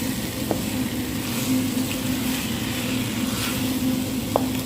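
Chicken pieces frying and sizzling in a pot of spiced tomato while being stirred, with soft scraping strokes and two light ticks of the utensil against the pot, over a steady low hum.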